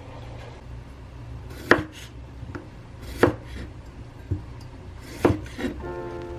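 A knife chopping on a cutting board: four or five separate sharp knocks, roughly a second apart, over a low room hum. Soft background music begins near the end.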